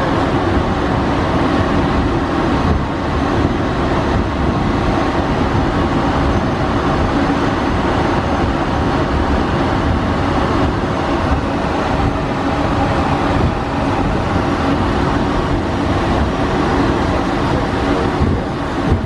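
Steady cockpit noise of an Embraer KC-390 taxiing: its two IAE V2500 turbofan engines running at taxi power, a constant dense noise with a few steady hums and a low rumble underneath.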